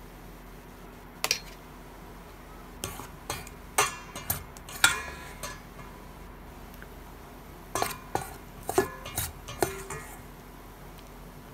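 A spoon clinking and scraping against the side of a stainless steel pot of stew as it is stirred: irregular sharp clinks with a short ring, busiest around four to five seconds in and again around eight to ten seconds.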